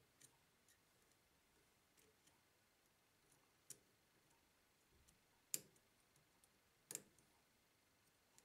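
Near silence, with scattered faint metallic clicks and ticks as small steel and brass fixture parts are handled and fitted by hand into a lathe chuck. Two louder clicks come in the second half, about a second and a half apart.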